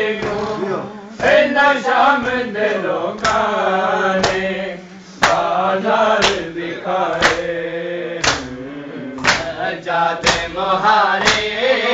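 Men chanting a noha, a Shia mourning lament, with sharp chest-beating (matam) strokes landing about once a second in time with the chant.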